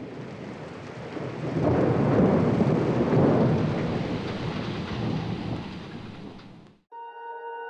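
Thunderstorm: steady rain with a rolling rumble of thunder that swells about two seconds in, then fades and cuts off near the end. Soft harp-like music begins just after the cut.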